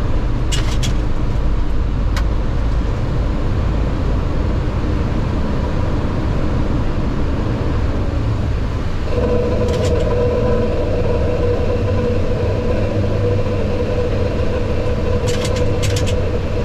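Flight-deck noise of a Boeing 737-800 at takeoff power just after liftoff: a steady, loud rumble of CFM56 engines and rushing air. About nine seconds in, a steady hum sets in and holds, with a few short clicks scattered through.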